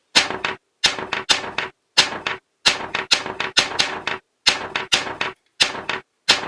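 Quick sharp taps or clicks in short clusters of two or three, repeating about every half second.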